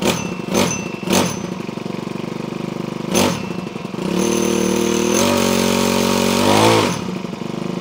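Honda HHH25 hedge trimmer's small four-stroke engine running just after the choke is turned off. It idles with a few brief blips, then is revved up about four seconds in, held high, and drops back to idle near the end. The machine is known to run bubbly and boggy, a fault put down to a dirty carburetor.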